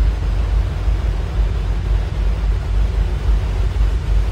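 Diesel-electric freight locomotives passing at low speed, their engines running with a steady deep rumble.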